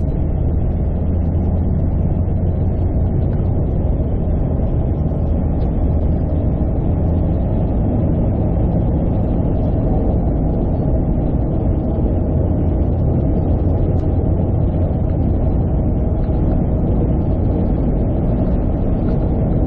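Steady low rumble of road and engine noise heard from inside a car's cabin while it drives at speed on a sealed highway.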